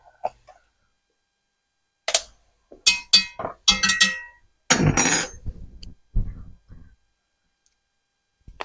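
Kitchen utensils handled while measuring spices: a series of sharp metal clinks and taps with brief ringing, then a short rustling scrape and a couple of soft knocks.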